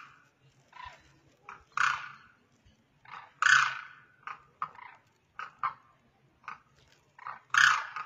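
Demoiselle crane calling: a string of repeated calls, three louder ones (about two seconds in, the loudest midway, and another near the end) with shorter, quieter notes between.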